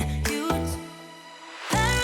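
Background pop music with synth notes and a heavy bass beat; the beat drops out for about a second midway and comes back in near the end.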